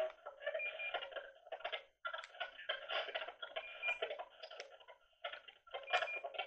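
Spirit box sweeping through radio frequencies: choppy fragments of radio sound and white noise, chopped up many times a second, through the device's small speaker, with short breaks about two and five seconds in.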